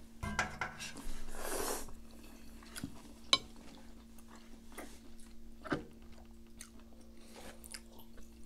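Meal-table eating sounds: a spoon and chopsticks clinking on a metal pan and plates, with a short rushing slurp of noodles in the first two seconds. A sharp clink about three and a half seconds in is the loudest, another comes near six seconds, and a faint steady hum runs underneath.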